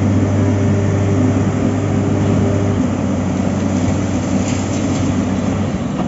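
A trailer concrete pump and transit mixer truck running at close range during a pour: a steady, loud diesel engine drone with a low hum, part of which weakens about three seconds in.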